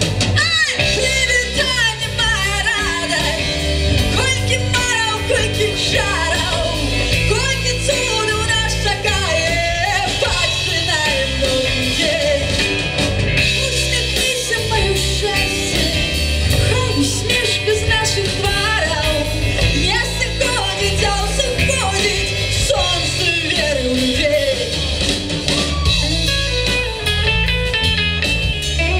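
Live rock band playing: a woman singing over electric guitar, bass guitar and drum kit.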